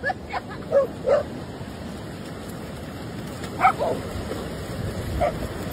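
Dogs barking: a quick run of short barks in the first second or so, then single barks near the middle and near the end, over the steady noise of surf.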